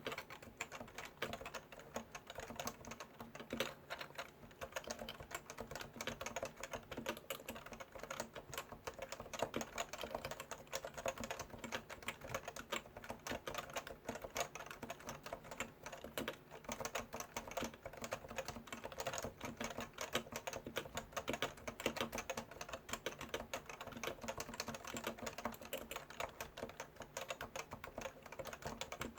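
Leopold FC980C keyboard with Topre electrostatic-capacitive switches being typed on continuously, a fast, steady run of muted keystrokes.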